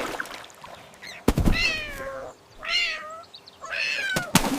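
Kitten meowing: three drawn-out meows, each sliding down in pitch, with a sharp thump just before the first and another near the end.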